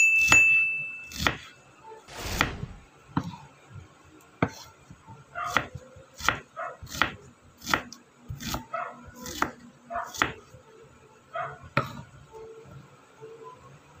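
Kitchen knife slicing a red onion on a wooden cutting board: a string of single knocks of the blade on the board, roughly one a second, stopping about two seconds before the end. A short high tone sounds right at the start.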